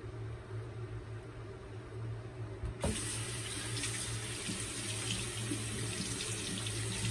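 Bathroom sink tap turned on about three seconds in, water running steadily into the basin as the shaver leans down to rinse his razor.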